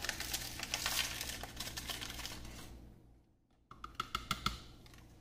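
A paper gelatin packet being torn further open and crinkled in the hands: dense rustling and tearing that fades after about two and a half seconds. The sound cuts out completely for a moment, then a plastic measuring spoon gives a few light clicks and taps.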